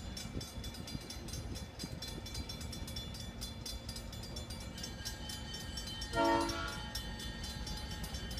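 Alco diesel locomotive idling with a steady low rumble. About six seconds in it gives one short horn blast.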